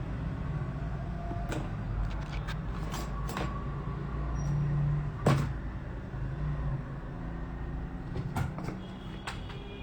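Scattered small clicks and taps of hand tools working on a phone circuit board, the loudest about five seconds in, over a steady low hum.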